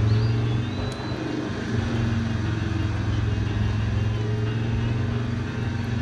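Radio-controlled 1/10-scale Land Rover Defender 110 crawling through soft sand: a steady low drone, with a faint high whine that rises and falls as the throttle changes.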